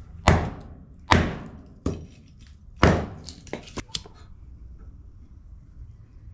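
Firewood being broken up for a fire: four heavy thunks roughly a second apart, then a quick run of lighter knocks.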